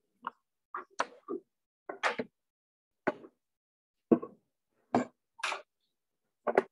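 A series of short, irregularly spaced knocks and clicks, about a dozen over several seconds, with silence between them.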